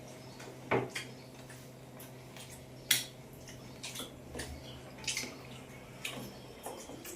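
Eating sounds: scattered soft clicks of rice and fish being eaten off a dish, with two sharp clinks against the dish, one just under a second in and a louder one about three seconds in.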